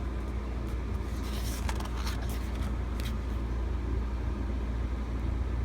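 Steady low rumble with a few short rustles and clicks of paper photo cards being handled, clustered a little over a second in and again about three seconds in.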